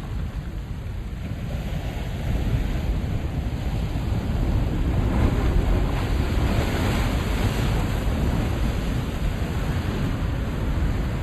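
Ocean waves breaking and washing over a rocky shore at high tide, a steady rush that swells about two seconds in, with wind rumbling on the microphone.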